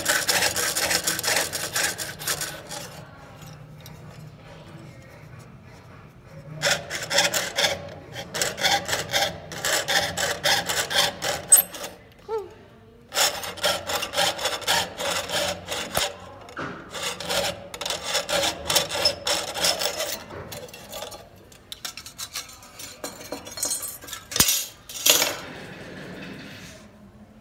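Jeweler's saw blade cutting through thin copper sheet on a wooden bench pin: rapid rasping strokes in several bursts with short pauses, fading out a little before the end as the cut is finished.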